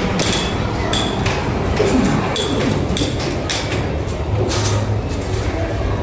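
Amusement arcade din: a steady hum of machines under background voices, with repeated sharp clacks and clinks every half second to a second.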